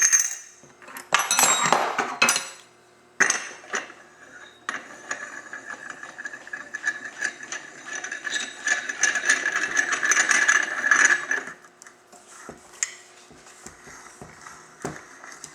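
Metal tools and clutch parts clattering, then about eight seconds of steady mechanical running as a spring compressor is tightened down on the drive spring of a Ski-Doo pDrive clutch. A few light clicks follow near the end.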